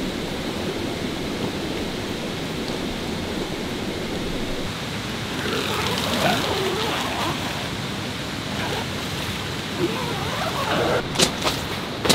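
Steady rushing noise, like running water or wind, with faint murmured voices about halfway through and a few sharp clicks near the end.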